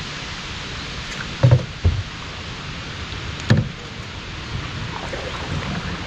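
Canoe being paddled on a calm river: a steady hiss of water, with a few dull thumps, two close together about one and a half seconds in and another about three and a half seconds in.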